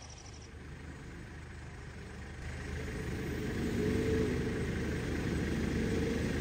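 Off-road vehicle's engine running, getting louder about two and a half seconds in and then holding steady.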